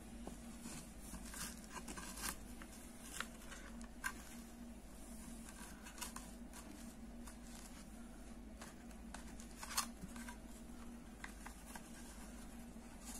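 Soft rustling and scattered light clicks of yarn and a crochet hook being worked through the holes of a wooden bag side, over a faint steady hum.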